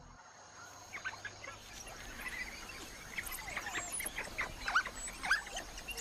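African wild dogs twittering: many short, high-pitched chirps and squeaks overlapping one another, starting about a second in.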